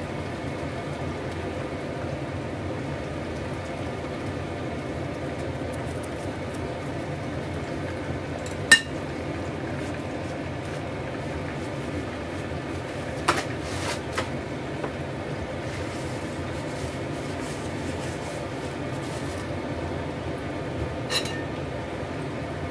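Kitchen cooking sounds: a steady hiss with a few sharp clinks of a utensil against a pan or dish, the loudest a little before halfway.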